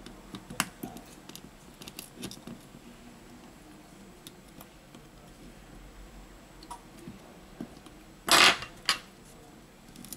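Light clicks and scrapes of repair tools against a Xiaomi Mi 9 SE's frame as its glued display module is pried off, mostly in the first two seconds. Near the end come two short, loud noises about half a second apart, the first the louder.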